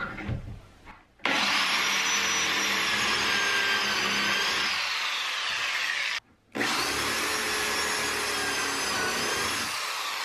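Corded electric drill boring pocket holes into 3/4-inch plywood through a Kreg pocket-hole jig, in two long runs with a brief pause between. The motor whine sags in pitch as the bit bites deeper near the end of each run. A few light knocks come before the first run.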